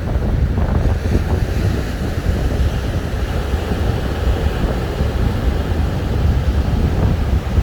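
Wind buffeting the microphone with a heavy low rumble, over the steady wash of Indian Ocean surf breaking on the beach.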